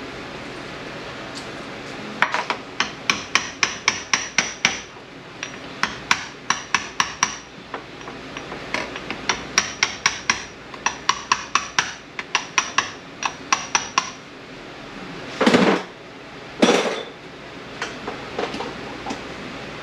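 Light hammer taps on metal during an 8L90 automatic transmission teardown, in several quick runs of about four taps a second, each tap ringing briefly. Near the end come two louder, longer scraping clunks.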